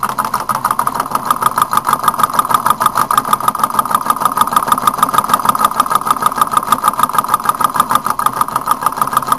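Homemade fan Stirling engine running steadily, its moving parts clicking in a rapid, even rhythm.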